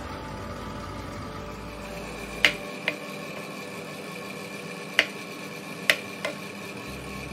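Chef's knife slicing through button mushrooms and knocking on a wooden cutting board: five sharp knocks, the first about two and a half seconds in, over a steady background hum.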